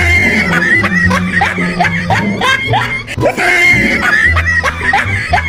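Upbeat background music with a steady beat, over which comes a quick string of short, high cries, each falling in pitch, like a laughing sound effect.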